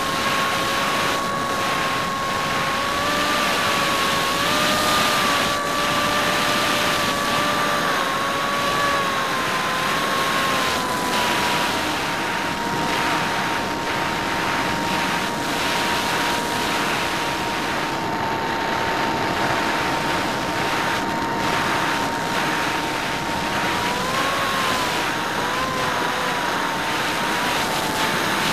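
Hymax 2700kv brushless inrunner motor spinning a 6x4 APC propeller, a steady whine heard from the plane's onboard camera, with wind rushing over the airframe. The pitch wavers a little near the start and again near the end.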